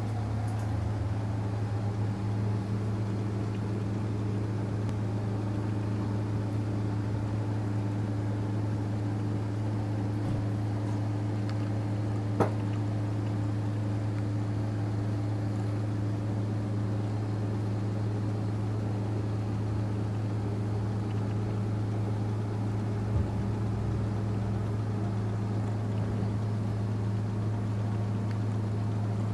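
Steady low hum from a running motor or electrical appliance at an even pitch, with a couple of brief faint clicks.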